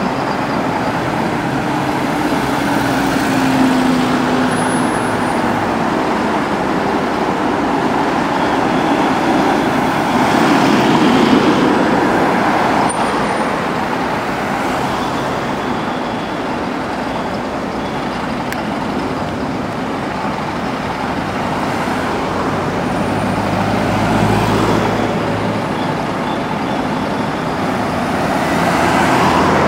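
Steady road traffic of buses and passing cars: bus engines running under tyre and road noise. It grows louder about ten seconds in as a vehicle passes, and a low engine rumble swells near the end.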